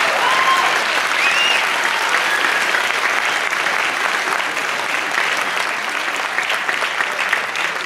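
Audience applauding, with a few cheers about a second in, the clapping easing slightly toward the end.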